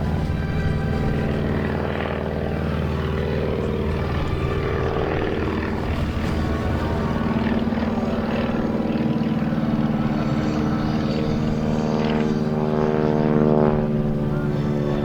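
Stearman biplane's radial engine and propeller droning in flight, with music playing alongside. Near the end the engine note sweeps in pitch and briefly grows louder.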